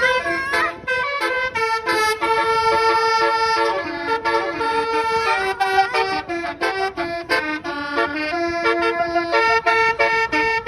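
Basuri 'telolet' multi-tone musical horn playing a tune: a quick run of loud, reedy horn notes that step between pitches several times a second, with a few notes held longer.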